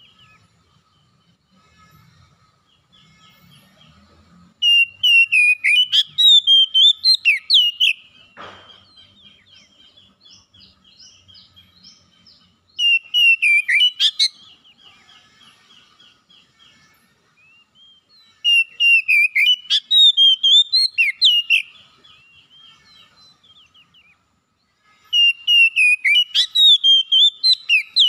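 Oriental magpie-robin singing: four loud bursts of rich, rapidly varied whistled phrases, with softer twittering between the bursts.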